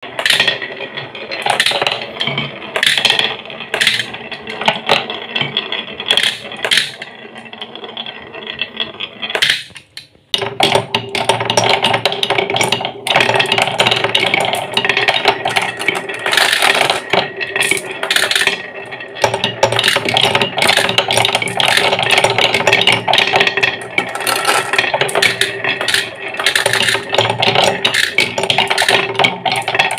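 Glass marbles clacking and rattling down a wooden wave-shaped track. After a short gap about 10 seconds in, marbles roll round and round a wooden bowl-shaped funnel, making a continuous rolling rumble with a steady hum and scattered clicks.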